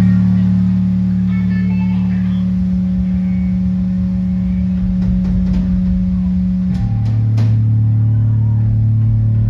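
Live rock band on amplified guitars holding one loud, steady low droning note. About seven seconds in it drops to a lower note, which is held.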